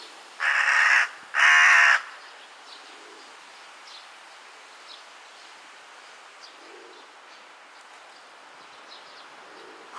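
Juvenile carrion crow giving two loud, harsh caws in quick succession, each about half a second to a second long: a lost young crow calling for its parents.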